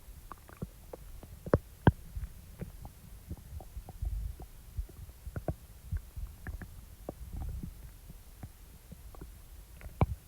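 Stomach rumbling and gurgling after eating, picked up close. Low rumbles swell about four seconds in and again near eight seconds, dotted with many small sharp pops and gurgles; the loudest two come just under two seconds in.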